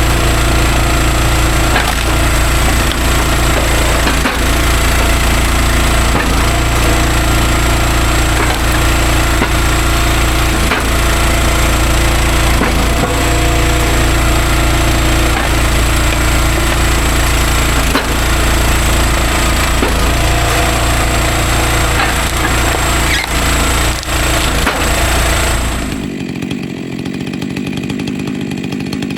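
Stihl MS400 two-stroke chainsaw running at full throttle, cutting through logs. Near the end it drops suddenly to a quieter, lower sound.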